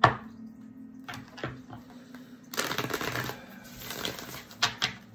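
A deck of tarot cards being shuffled and handled: a sharp snap at the start, a stretch of rapid riffling about two and a half seconds in, and a couple of quick taps near the end.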